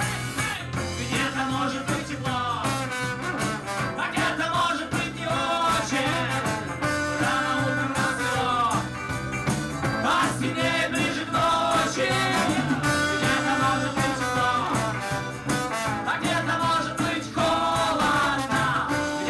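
Live band playing an upbeat song: trombone and accordion over electric guitar and drums, with a steady beat.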